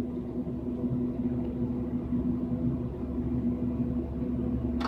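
A steady low electrical hum with a constant tone, and a single sharp click near the end.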